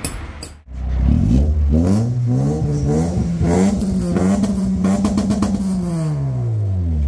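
Honda Accord G8 engine revved once through a Toda titanium aftermarket exhaust. The note climbs steadily for about three seconds, holds high for a second or so, then falls back toward idle near the end.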